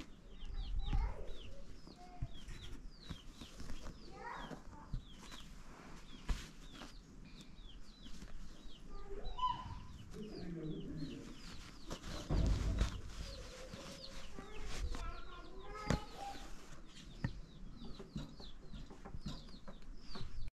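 Chickens clucking in the background, with many short high chirps throughout and a low muffled thump about twelve seconds in.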